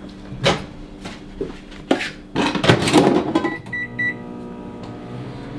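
A few knocks and a clatter of dishes being handled, then three short beeps from a microwave oven's keypad about three and a half seconds in, followed by the steady hum of the microwave running.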